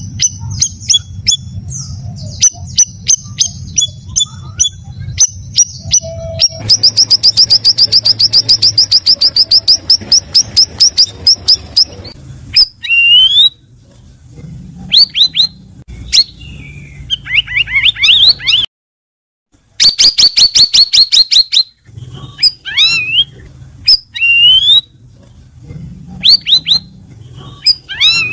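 Cucak rawis bulbul singing: clear, sweeping whistled notes mixed with fast runs of repeated sharp chirps, over a low steady hum. The song drops out for about a second partway through.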